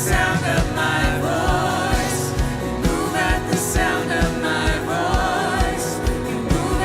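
Worship music: voices singing over a band, with a steady drum beat.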